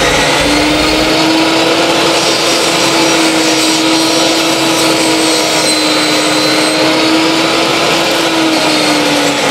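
Table saw running at full speed while ripping a board lengthwise. Its motor note comes up to speed at the very start, holds steady, and sags near the end.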